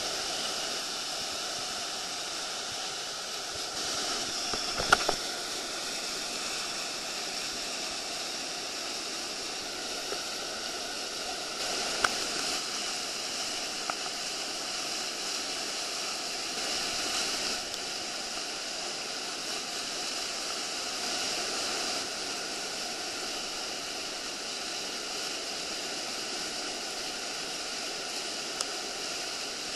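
Whitewater rushing and churning in the stopper wave below a river weir, a steady wash of water noise. A few sharp knocks cut through it, the loudest about five seconds in.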